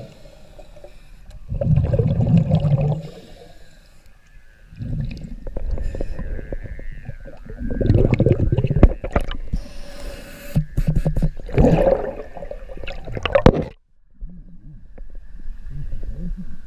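Scuba diver's exhaled breath bubbling out of a regulator underwater, in bursts about every three seconds. The bubbling cuts off about fourteen seconds in.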